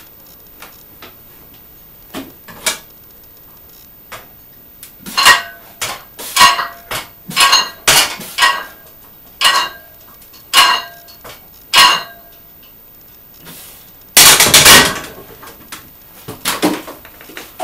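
Barbell weight plates clanking with a ringing metal tone, about once a second over several bench press reps, then a longer, louder metal clatter near the end.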